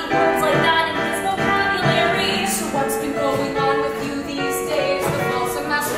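Women singing a musical theatre song over keyboard accompaniment, with held chords under the voices throughout.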